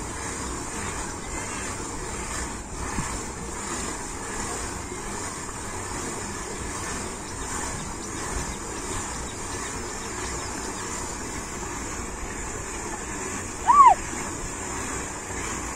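Steady outdoor background noise with a constant high hiss. Near the end comes one loud, short whistle that rises and falls in pitch.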